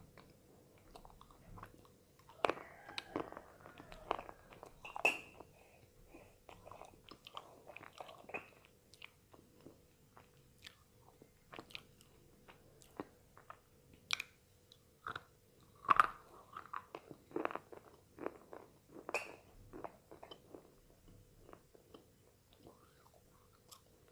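Tiger-brand slate pencils being bitten and chewed: a run of sharp, irregular crunches and gritty chewing, with the loudest bites about two to five seconds in and again about two-thirds of the way through. A faint steady hum runs underneath.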